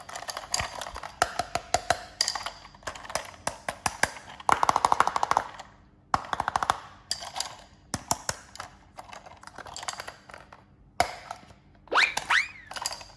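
Plastic toy pieces of a Thomas & Friends playset clicking and knocking as they are handled, with a fast rattle about halfway through and a short whistle-like tone that rises and falls near the end.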